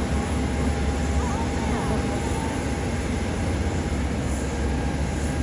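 Steady jet airliner engine noise with a deep rumble and a faint steady whine.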